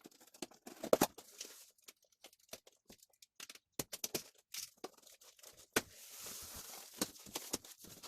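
Cardboard carton and packaging being opened and handled: scattered crackles and clicks of card and wrapping, then a steadier rustle of about two seconds from around six seconds in.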